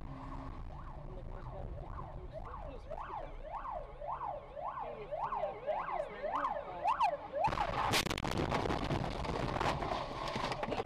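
Ambulance siren yelping, its pitch rising and falling about twice a second and growing louder as it approaches. About seven and a half seconds in, a sudden loud crash cuts in, with a sharp bang.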